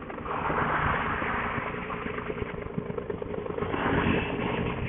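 Motorcycle engine running while riding at low speed, with a steady rough rumble and a wash of road and wind noise.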